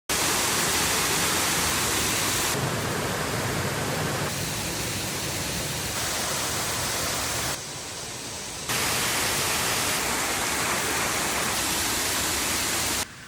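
Waterfall water rushing: a steady, loud hiss of falling water that changes abruptly in level and tone several times, as between separate shots.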